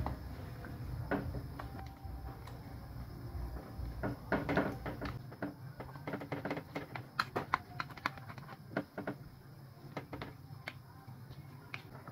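Metal ladle and wooden spoon clinking, tapping and scraping in a pot of simmering pork broth while skimming the scum off the top: scattered sharp clicks, thickest in the middle. A low rumble underneath drops away about five seconds in.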